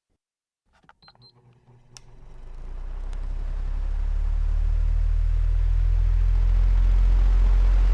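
Oscillating house fan switched on: a few clicks from the switch, then the motor hum and rush of air build up over about three seconds to a steady run.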